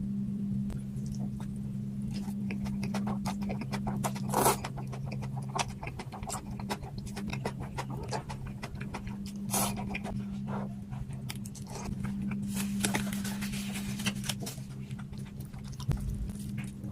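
Close-up eating sounds: chewing with many small wet clicks and smacks, a few louder sudden noises and a noisier stretch near the middle, over a steady low hum.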